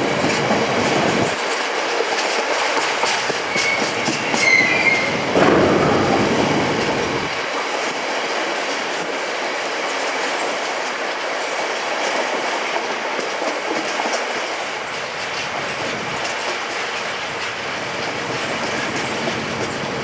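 Coal train wagons rolling past on the track, their wheels clattering steadily over the rails, with a brief high wheel squeal about four to five seconds in. The low rumble is heavier for the first seven seconds.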